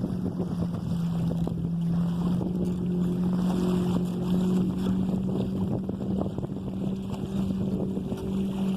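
Wind buffeting the microphone and water washing along the hull of a sailing canoe under way, with a steady low drone throughout that shifts slightly in pitch.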